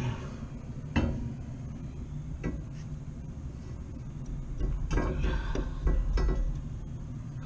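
Sharp metallic clinks and knocks of hand tools against a rooftop unit's blower motor mount and pulleys during pulley alignment, a single knock about a second in and a cluster of clanks later, over a steady low hum.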